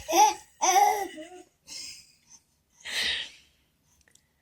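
A baby laughing in two short pitched bursts that trail off, then a short breathy sound about three seconds in.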